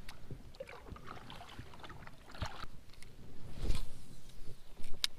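Scattered knocks and clicks of gear and hands moving in a plastic kayak on calm water, with light water sounds around the hull. A louder rush of noise comes a little past the middle and a sharp click near the end.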